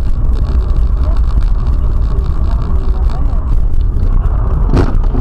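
Car cabin noise from a dashboard camera while driving: a steady low rumble of road and engine, with a faint radio voice over it, and a short knock near the end.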